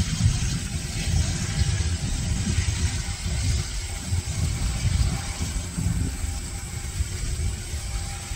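Twin Honeywell TFE731 turbofans of a Raytheon Hawker 800XP business jet running steadily, heard as a fluctuating low rumble under an even rushing hiss.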